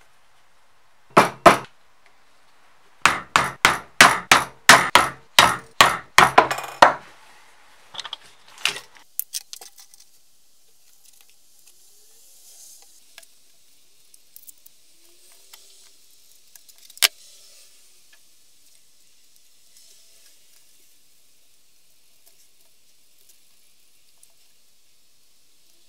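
Hammer blows in leatherwork: two sharp strikes, then about a dozen more in quick succession, roughly three a second, followed by a few lighter taps. After that, only the faint rustle of hand stitching, with one sharp click partway through.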